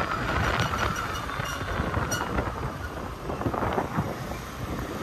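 Honda scooter ridden flat out on a highway: steady engine and road noise under heavy wind rumble on the microphone.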